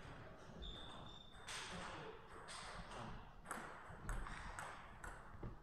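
Celluloid-type table tennis ball clicking off the paddles and the table during a rally. The light, sharp hits come roughly every half second to a second.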